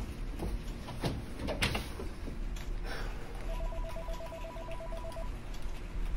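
An electronic telephone rings with a fast pulsing trill on two pitches, starting about halfway through and lasting under two seconds. Before it come a few scattered clicks and knocks.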